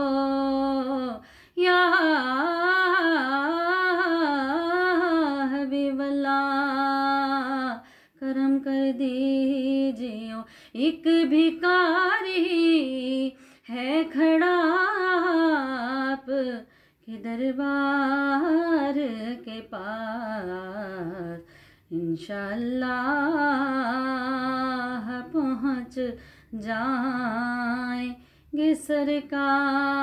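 A naat, an Urdu Islamic devotional song, sung by a single voice in long, wavering, ornamented phrases with short pauses between them and no instruments.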